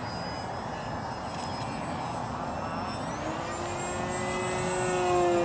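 ParkZone VisionAire RC plane's electric motor and propeller whining in flight; about three seconds in the pitch climbs, and the sound grows louder near the end.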